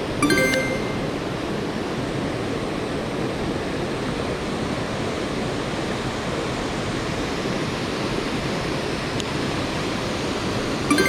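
Mountain stream rushing steadily. Two short ringing clicks break through it, one just after the start and one near the end.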